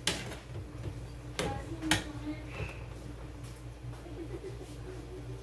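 A few light knocks and scrapes of a plastic spoon against an aluminium pot as cooked rice is stirred and fluffed: one at the start, then two about half a second apart a little over a second in, over a low steady hum.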